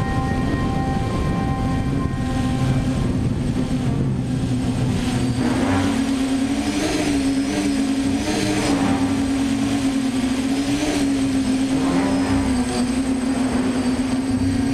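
DJI Flame Wheel F550 hexacopter's six electric motors and propellers heard from on board in flight: a steady buzzing hum whose pitch starts wavering up and down about halfway through as the motors change speed.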